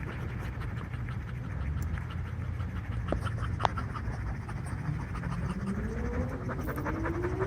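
Dogs panting, with scratching and scuffling and many small clicks. A steady tone that rises slowly in pitch begins near the end.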